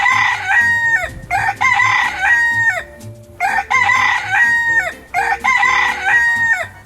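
Rooster crowing four times in a row, each cock-a-doodle-doo about a second and a half long, holding its pitch and then dropping off at the end.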